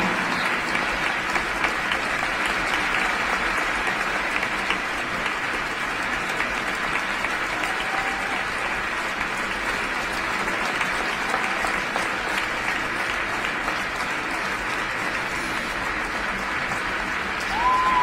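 Large arena crowd applauding steadily.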